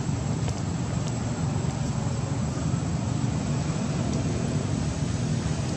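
Steady low rumbling background noise with no distinct events, and a faint steady high-pitched tone above it.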